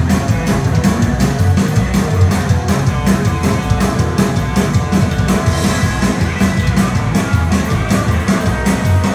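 Live rockabilly trio playing at a steady beat: Gretsch hollow-body electric guitar over upright bass and a drum kit.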